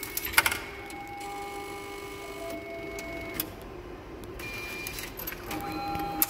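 Automatic ticket machine handling an inserted 500-yen coin: a brief clatter of the coin going in about half a second in, then the machine's internal mechanism whirring with scattered clicks while it processes the IC card top-up. The mechanism gets busier again near the end.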